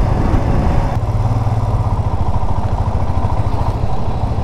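Motorcycle engine running steadily with a fast, even exhaust beat.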